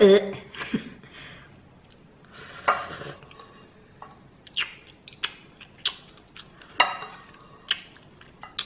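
Eating noodles from a bowl: a slurp, then chopsticks and a spoon clicking and scraping against the bowl several times.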